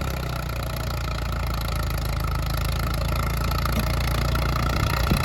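1940s Caterpillar D4 bulldozer's four-cylinder diesel engine running steadily.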